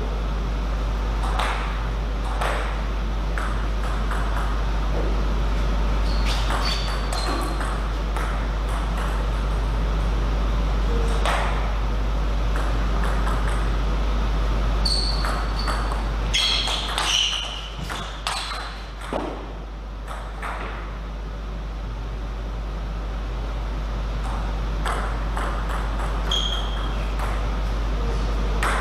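Table tennis ball being struck by paddles and bouncing on the table: sharp clicks at irregular intervals, some ringing briefly, over a steady low hum.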